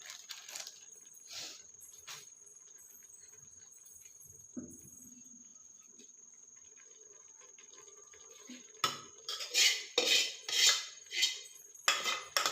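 Mostly quiet with a few soft clicks. Then, about nine seconds in, a metal spoon starts scraping and clinking against a metal pot in quick repeated stirring strokes, about two or three a second.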